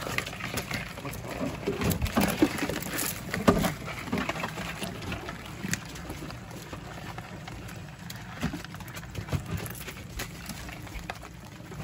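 Scattered clicks, light knocks and wet rustling as a fresh catch of live crabs, shrimp and fish is picked over by hand, busier in the first few seconds.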